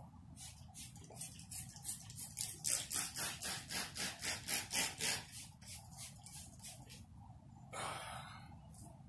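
Trigger spray bottle squeezed rapidly, spraying down a motorcycle wheel rim: a quick series of short squirts, about four a second, then one longer hiss near the end.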